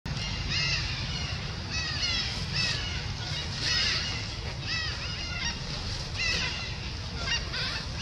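Long-tailed macaques giving short, high squeaky calls, each one rising then falling in pitch, repeated about a dozen times at uneven intervals over a steady low rumble.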